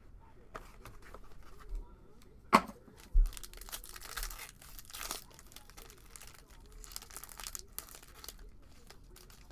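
Plastic trading-card packaging crinkling and tearing in two stretches of crackle, after two sharp knocks about two and a half and three seconds in.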